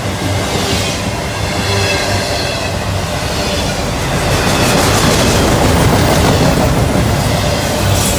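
Autorack freight cars rolling past: a steady rumble and clatter of steel wheels on rail, with a faint high wheel squeal in the first few seconds. The noise grows louder about halfway through.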